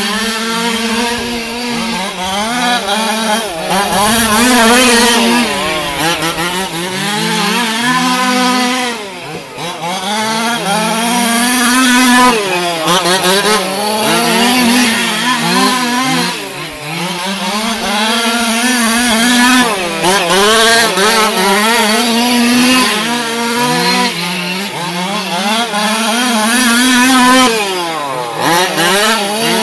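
Small two-stroke gasoline engines of HPI Baja-based 1/5-scale RC cars running hard together, their high buzzing pitch climbing and dropping every few seconds as they accelerate and back off around the oval.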